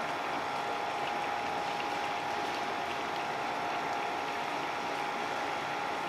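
A pot of squid adobo in ink sauce simmering: a steady bubbling hiss, with a steady hum underneath.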